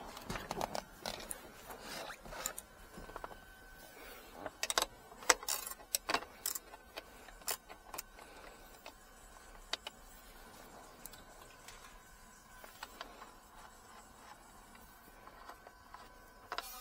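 A ratchet and long socket extension working the airbag module's mounting fasteners on the transmission tunnel: irregular metallic clicks, taps and scrapes, busiest and loudest a few seconds in, then thinning out to occasional ticks.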